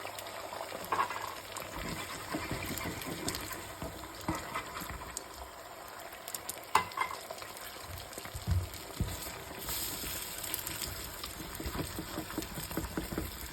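Food sizzling in a frying pan while it is stirred, with a few scattered clicks of a utensil against the pan.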